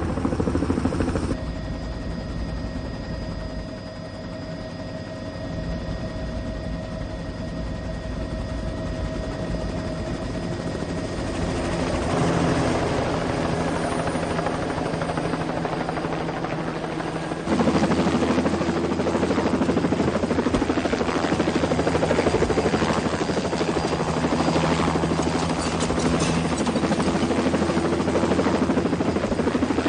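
Helicopter running steadily, engine and rotor, with a sudden jump to a louder, closer sound a little past the middle.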